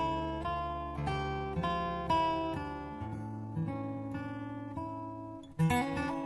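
Acoustic guitar intro music: single picked notes ringing and fading one after another, with a strummed chord about five and a half seconds in.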